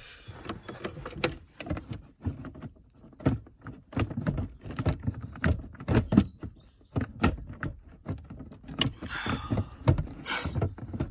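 Plastic glove box knocking, clicking and scraping in irregular short bursts as it is pushed and worked into its opening in a Mercedes W220 S-Class dashboard.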